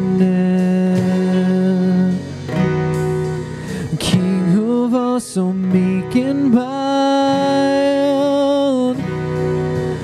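Live worship band playing, acoustic and electric guitars under a singer's voice; about two-thirds of the way through the singer holds one long note with vibrato.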